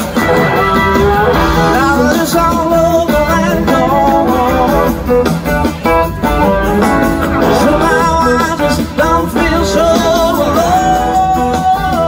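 A live blues-rock band playing electric guitar, bass and drums, with a gliding melody line over a steady beat.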